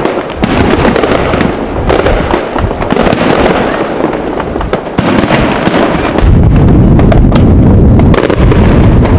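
Aerial fireworks display: shells bursting in quick succession with dense crackling and bangs. The sound gets louder and deeper from about six seconds in.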